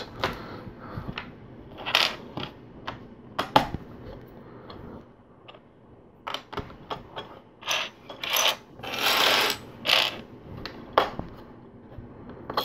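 Plastic LEGO bricks clicking and clattering as small pieces are handled and pressed onto the model: a string of separate sharp clicks, with a longer rattling stretch about nine seconds in.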